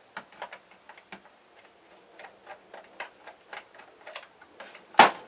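A screwdriver working a stubborn screw in a plastic clock case makes a run of light, irregular clicks and ticks, a few a second. A sharp, much louder knock comes about five seconds in.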